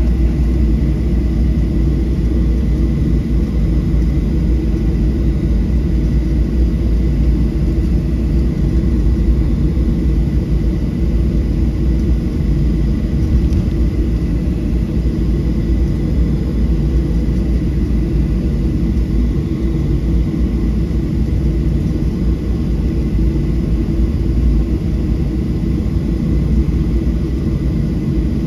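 Steady low rumble of a Boeing 737-700's cabin as the jet taxis on its CFM56 engines, with a thin steady high whine above it.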